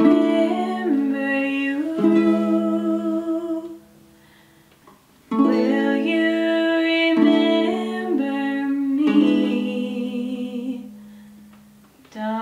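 Ukulele playing under a wordless sung melody of long held notes. The music stops for about a second and a half, about four seconds in, and fades out near the end before starting again.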